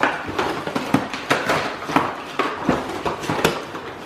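Irregular clicks, knocks and rattles of hard plastic being handled, several a second, over a light rustle of packaging as new Nerf blasters and their darts are unboxed.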